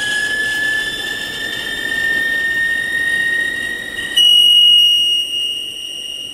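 CNC lathe tool screeching as it machines a pre-hardened 4140 steel head stud: a loud, high-pitched squeal whose pitch creeps slowly upward, then jumps to a higher, steadier tone about four seconds in.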